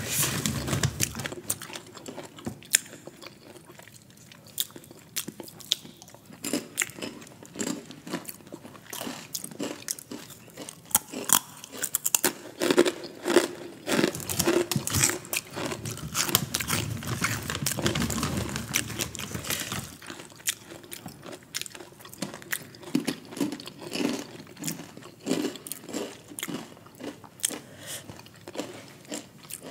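A person biting and chewing crunchy snack chips close to the microphone: a run of sharp, irregular crunches, thickest in the middle.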